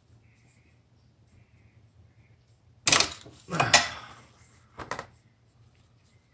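Socket wrench working a motorcycle's oil drain plug: a few sharp metallic knocks about three seconds in, and two more short knocks near the five-second mark.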